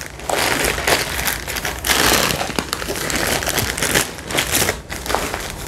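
Plastic grocery bags crinkling and rustling as they are handled and rummaged through, loudest about two seconds in.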